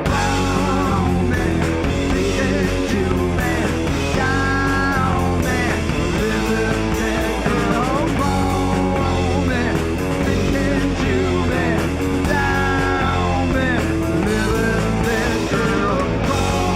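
Rock band playing live, loud and steady, with electric guitar lines bending in pitch over bass and drums.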